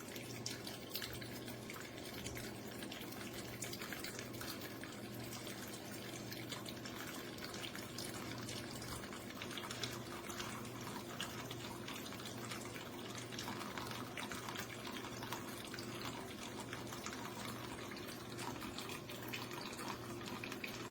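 Zuqqony DYSJ01 stainless steel pet water fountain running: water trickles and drips steadily over a low, even hum.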